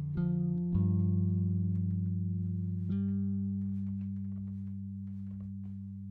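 Background music: low, held plucked-string notes that change about a second in and again about three seconds in, each slowly fading.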